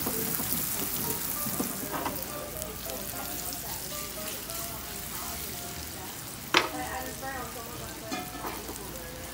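Flour-dredged veal cutlets frying in hot oil in a pan, a steady sizzle. About six and a half seconds in, a single sharp clack, the metal tongs striking the pan.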